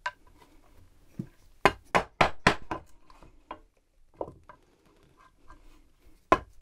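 Small lignum vitae–headed mallet striking a wood chisel, chopping out a mortise in a plank: sharp knocks, with a quick run of about five blows a second and a half in, a few lighter taps after, and one more hard knock near the end.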